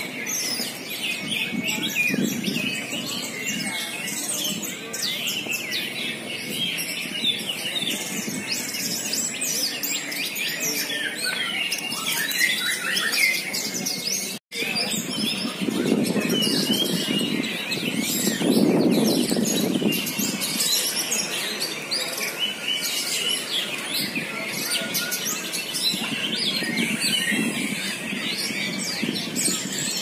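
Many contest songbirds singing and chirping at once in a dense, overlapping chorus, the massed sound of a bird-singing competition. Human voices swell under the birds a little past halfway, and the sound cuts out for an instant just before.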